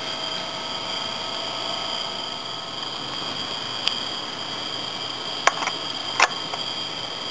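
A few sharp metallic clicks in the second half as a hand tool meets the bolts of the Weber 32/36 carburettor's air-cleaner base plate, over a steady high-pitched whine.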